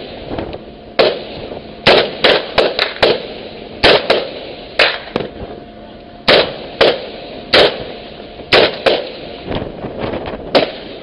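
Rifles firing single shots at an irregular pace, more than a dozen sharp cracks with some coming in quick runs of two or three, each trailing off in a short echo.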